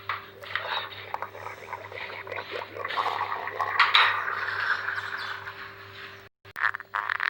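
A stomach growling and gurgling in an irregular run of squelchy rumbles, broken off suddenly about six seconds in.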